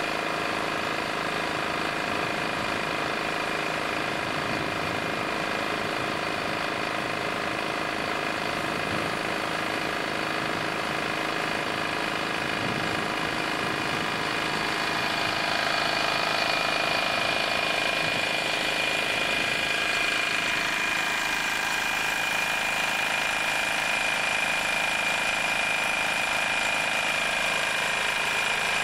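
Engine of excavation machinery running steadily at a constant speed, with a steady high tone over it; about halfway through the sound shifts and grows a little louder.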